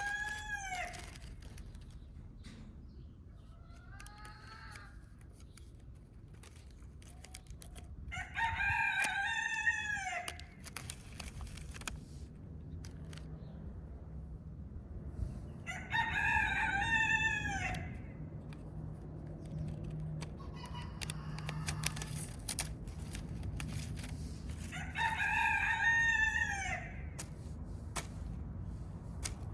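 A rooster crowing over and over. Each crow lasts about two seconds and they come roughly eight seconds apart, with fainter crows in between.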